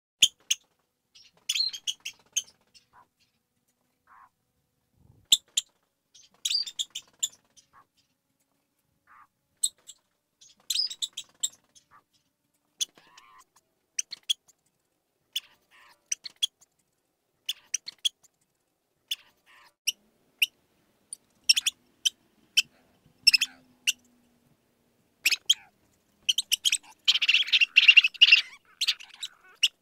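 Mouse squeaking: short, high-pitched squeaks in scattered little groups, turning into a rapid flurry of squeaks about 26 seconds in.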